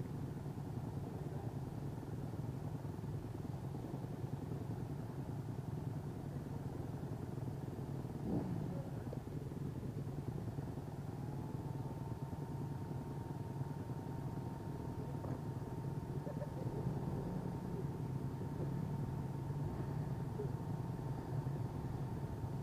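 Honda CRF single-cylinder four-stroke dirt bike engine idling steadily. A faint, steady high tone joins in about halfway through.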